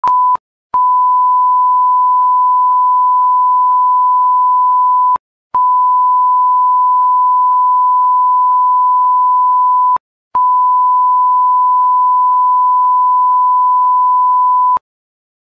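A steady electronic test tone near 1 kHz, like a broadcast reference tone. After a brief blip it sounds three times, each for about four and a half seconds with a short gap between, and faint ticks come about every half second in the latter part of each tone.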